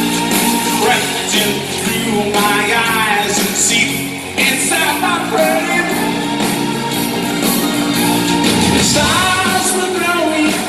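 Live band playing a rock-pop song, with a woman singing lead over keyboards and the band. The sound echoes as it is heard from the audience in a large arena.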